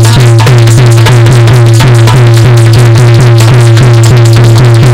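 Instrumental passage of Dhola folk music: fast, even hand-drum strokes, likely a dholak, over a steady held low note.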